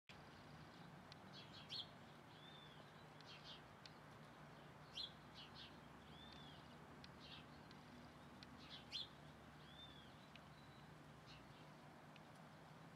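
Male house sparrow chirping: short, sharp chirps in little clusters every second or two, with a softer, arched chirp every few seconds.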